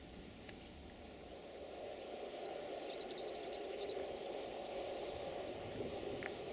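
Distant VT614 diesel multiple unit approaching, a low rumble that grows louder from about two seconds in, with birds chirping over it.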